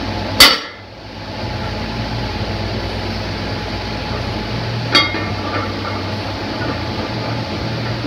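Plate-loaded barbell set down hard on a rubber floor: a loud thud with a clang of iron about half a second in, then a lighter clink of bar and plates about five seconds in as the bar leaves the floor for the next pull. A steady low hum runs underneath.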